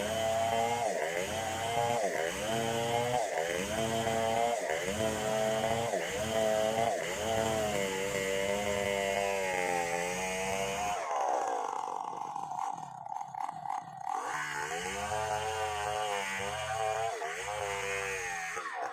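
A large two-stroke chainsaw, a Stihl 070, running hard while ripping a log, its engine note dipping under load and picking back up about once a second. For a few seconds past the middle the deep rumble drops away to a thinner, higher note before the cutting rhythm resumes.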